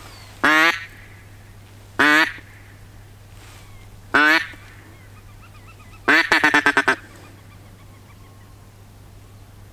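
Hen-mallard quacks blown on a duck call, close and loud: three single quacks about two seconds apart, then a quick run of about seven quacks. The calling is meant to lure a circling mallard drake in.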